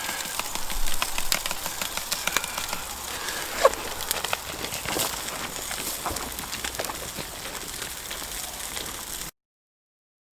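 Wood campfire crackling, with scattered snaps and pops over a steady hiss. A single short falling squeak comes about three and a half seconds in, and the sound cuts off abruptly to silence near the end.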